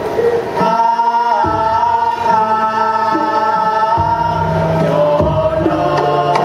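A karawitan vocal ensemble of men and women singing together in long, slowly bending held notes, in the style of a gamelan chorus.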